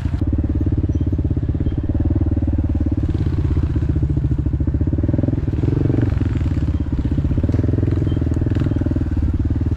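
Dirt bike engine running at low, steady revs under the rider.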